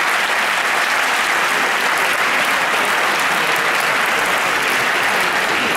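Large theatre audience applauding steadily, many hands clapping at once.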